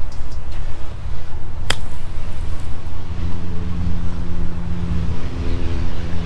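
A pitching wedge strikes a golf ball off a bare dirt lie: one sharp click about two seconds in, over wind rumbling on the microphone. From about halfway through, a steady low engine drone joins.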